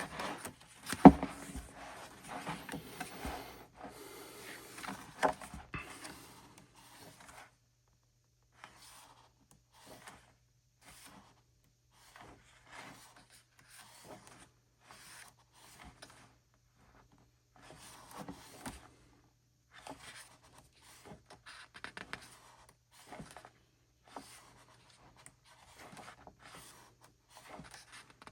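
Pages of an album photo book being handled and turned: paper rustling and sliding, busy for the first several seconds with a sharp tap about a second in, then a short page-turn rustle every second or so.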